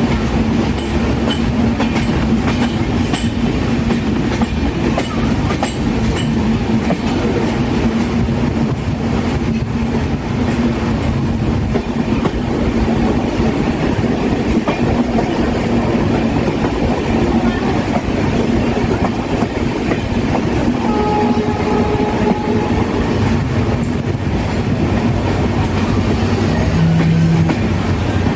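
Train running on the rails: a loud, steady rumble and clatter of wheels over track with a held hum, a few sharp clicks in the first seconds, and a brief higher tone about two-thirds of the way through.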